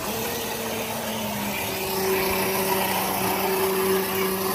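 Electric motor and gear drive of a 1/10-scale RC crawler whining steadily as it drives, the pitch shifting slightly about a second and a half in.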